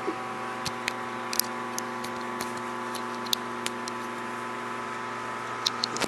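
Light, scattered clicks and ticks of fingers handling and tapping a smartphone, about fifteen in all, with a small cluster near the end, over a steady hum of several held tones.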